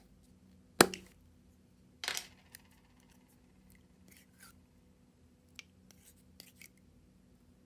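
Store-bought putty slime and its containers being handled: one sharp click a little under a second in, a short crackling burst around two seconds in, then a few faint clicks and squishes.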